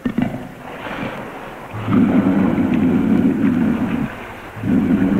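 Two long, low, rasping growls of a big cat, a panther, each lasting about two seconds, the second starting near the end. Before them, water sloshing and splashing in the pool.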